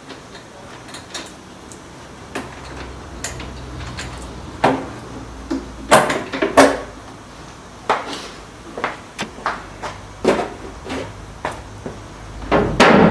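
Irregular knocks, clicks and clatters of motorcycle bodywork and tools being handled as the rear cowling comes off, with the loudest knocks about six seconds in and again just before the end.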